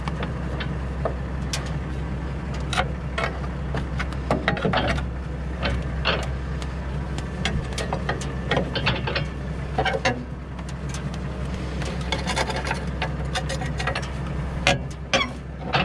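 Sharp metal clicks, knocks and scraping of a steel blade-change lever working at the blade holders under the discs of a Pöttinger Novacat disc mower, over a steady low engine hum.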